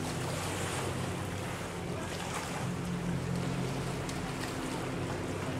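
Motorboat engine running steadily at speed as an unmanned runaway boat circles, its low hum mixed with wind noise on the microphone.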